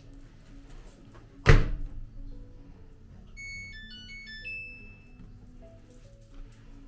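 Soft background music with a single loud thunk about one and a half seconds in, like something solid being set down or shut. A short run of high electronic-sounding beeps follows a couple of seconds later.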